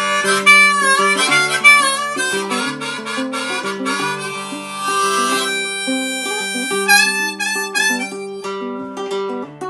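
Harmonica playing an instrumental break over a strummed ukulele. The harmonica runs through quick notes in the first half, then turns to longer held notes.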